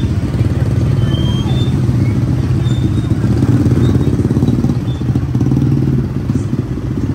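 Motor scooter engines running close by at low speed, a steady low hum, with people talking.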